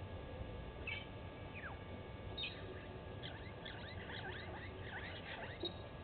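A flock of small birds calling. A couple of single chirps and a falling whistle come in the first two seconds, then a dense run of quick, high chirps and twitters lasts until near the end, over a faint low background rumble.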